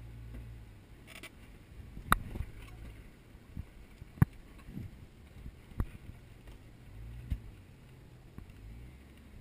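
Jeep engine running low and steady in the cabin at crawling speed over rough dirt, with several sharp knocks and clunks from the body and fittings as it bounces, the loudest about two and four seconds in.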